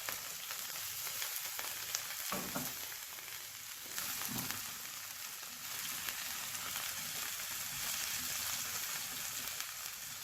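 Chopped onion frying in hot oil in a pan: a steady sizzle, with a couple of soft knocks from stirring.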